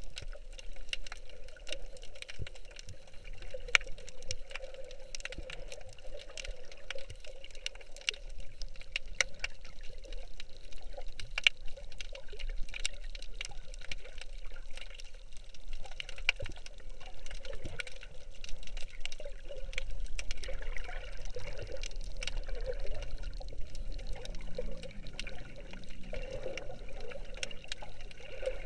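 Underwater sound picked up by an action camera submerged in shallow sea water: a steady muffled wash of water with many sharp clicks and crackles scattered throughout.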